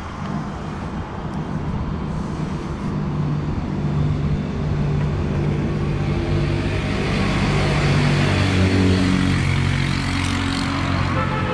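Road traffic: a motor vehicle's engine hum builds and passes, loudest about eight to nine seconds in.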